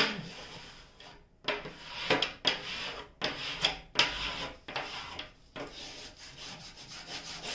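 A flat hand-held smoothing tool rubbed hard across the cover sheet of a diamond painting canvas in repeated scratchy strokes, about two a second, pressing the canvas down onto double-sided tape.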